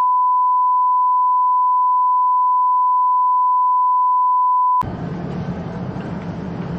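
A steady, pure beep-like tone of about 1 kHz, held for nearly five seconds, then cut off suddenly. A steady noisy background rumble follows.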